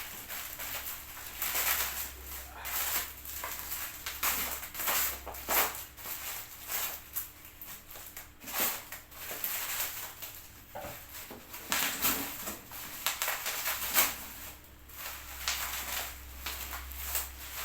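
Packaging being unwrapped by hand: irregular rustling and crinkling with scattered scrapes and small knocks.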